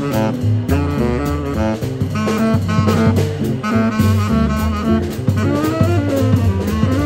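Small jazz combo playing live: saxophones carry the melody over an upright bass, electric guitar and drum kit, in a swing feel.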